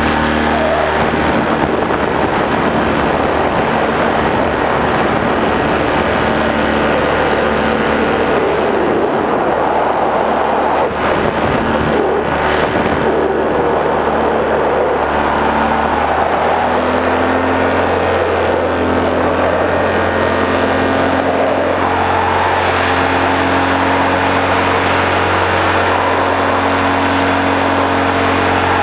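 A motor running steadily, with a noisy rushing over it; its pitch steps to a slightly different note about halfway through.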